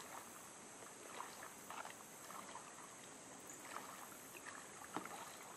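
Kayak paddle blades dipping into calm river water, with soft splashes and drips every second or so, the loudest near the end, over a steady high drone of insects.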